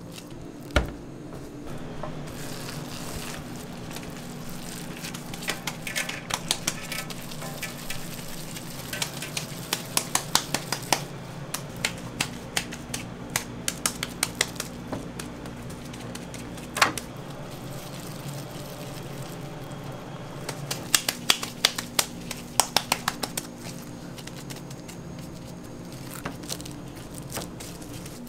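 Gloved hands slapping and throwing a ball of ground hamburger-steak meat mix, in runs of quick sharp slaps several a second, with a louder single smack about a second in and another a little past the middle. A steady low hum runs underneath.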